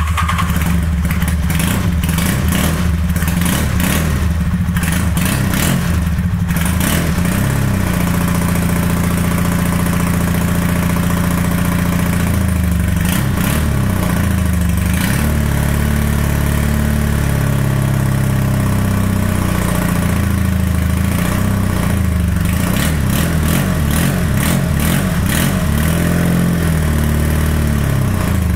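Honda V65 Sabre's 1100 cc V4 engine running just after its first start, engine speed rising and falling several times. It is not running on all cylinders.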